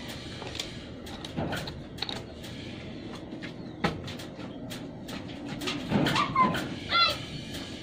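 Small wooden clicks and taps of popsicle sticks being handled. About six to seven seconds in, a bird calls a few short times, the loudest sounds here.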